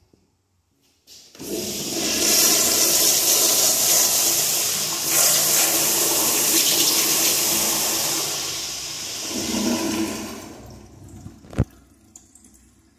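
American Standard toilet flushing. A loud rush of water starts about a second in, runs for about nine seconds, then dies away. A short sharp click comes near the end.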